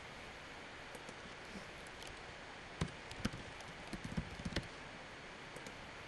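A handful of computer keyboard keystrokes and mouse clicks, spread from about three to four and a half seconds in, over a faint steady hiss.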